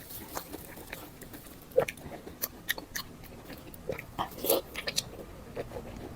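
A person chewing and biting food close to the microphone: irregular wet smacks and small clicks of eating mouth sounds.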